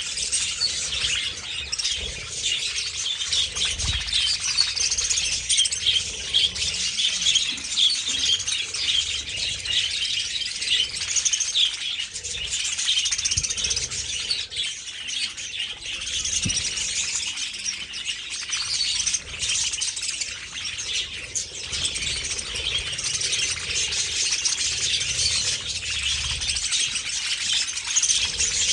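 A large flock of budgerigars chattering and chirping continuously, many birds calling over one another.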